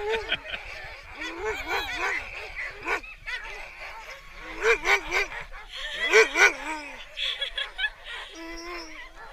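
Harnessed sled dogs giving high, wavering yelps and whines in short bursts every second or so, several dogs at once: the excited calling of a hitched team waiting to run.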